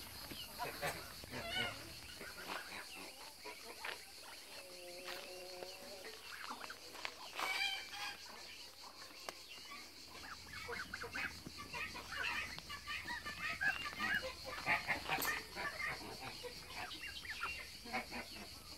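Muscovy ducklings and goslings peeping in many short, high chirps, with a few lower honking calls from young domestic geese.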